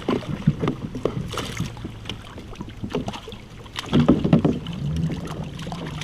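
Irregular knocks and clatter of a smallmouth bass being landed and handled in a kayak, the fish thrashing against the boat and gear, loudest about four seconds in.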